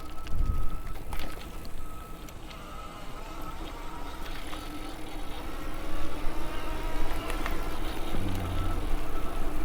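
Electric bike riding along a trail: rumble of tyres and wind with a thin, steady motor whine, and a low thump a little after eight seconds in.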